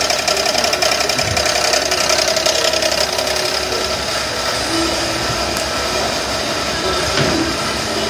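A 3.8-litre 3800 Series II V6 running with a rapid, steady knock from inside the engine, which the owner takes for a worn-out connecting-rod bearing on the crankshaft.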